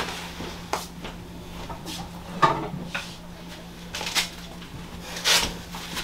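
Scattered short knocks and rustles, about six in all, from someone moving about and picking up and handling a Y-strap, over a steady low hum.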